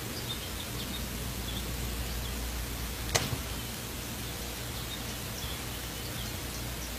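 Outdoor woodland recording playing from a laptop's speakers: steady hiss and low hum with faint, scattered bird chirps. A single sharp tap sounds about three seconds in.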